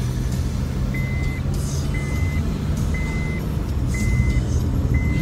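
A car's electronic warning beeper gives a short, flat, high beep about once a second, starting about a second in. Under it is the low, steady hum of the engine and road noise inside the cabin.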